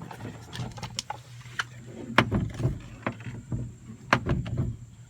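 New door check strap on a Mercedes W126 rear door, clicking and clunking through its detents as the door is swung back and forth. There is no squeak from the freshly replaced strap.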